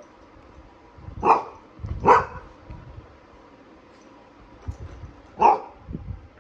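Young golden retriever giving three short barks: about a second in, again a moment later, and once more near the end. It is excited and eager to be taken out for a walk.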